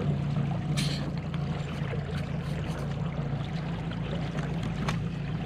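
Small fishing boat's motor running steadily under way, a constant low hum, with water rushing along the hull.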